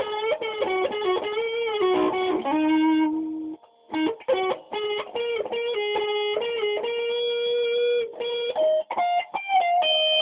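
Electric guitar playing an improvised lead solo: sustained single notes with string bends, a brief break about three and a half seconds in, then quicker runs of notes.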